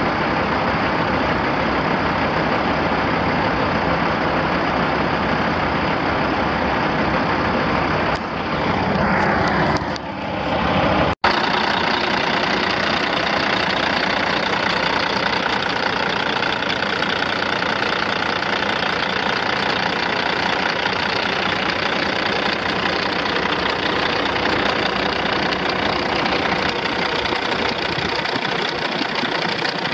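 Caterpillar C15 Acert six-cylinder diesel of a 2005 Peterbilt 378 semi truck idling steadily. Its sound shifts briefly about eight to ten seconds in, drops out for an instant at about eleven seconds, then runs steadily again.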